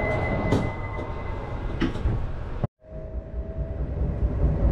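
Hokuriku Shinkansen train's sliding door closing, with a steady high warning tone that stops just after the start and two knocks as the door shuts. After a brief gap, the train rumbles as it pulls away, with a faint steady motor whine.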